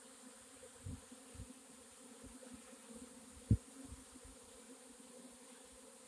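Honey bee swarm buzzing: a steady hum of many bees in flight. A few brief low thumps break through, the loudest about halfway through.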